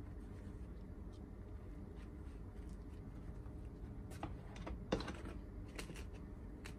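Light crackles and clicks of baked bread crust as hands squeeze, turn and set down baguettes on a wooden board, a few in the second half with the sharpest about five seconds in, over a faint low hum.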